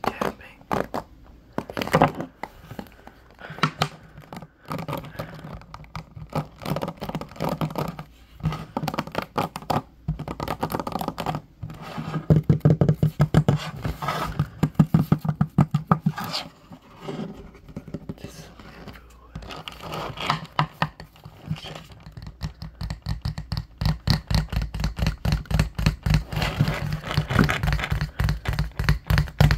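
Fingers scratching and rubbing over the plastic ball-tipped pins of a bamboo paddle hairbrush, making dense, fast scratchy clicks. In the later part they give way to quick, even tapping with the fingers on the brush's hollow wooden back.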